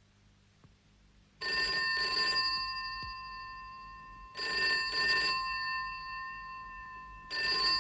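A telephone bell ringing in the British double-ring pattern, "brr-brr", three times about three seconds apart. The first ring comes after about a second and a half of quiet, and the bell's tone lingers and fades between rings.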